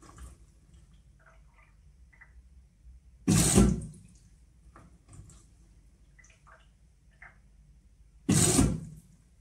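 Whirlpool washing machine on its Steam Refresh cycle: short hissing spurts about five seconds apart, each about half a second long, with faint ticks and clicks between them.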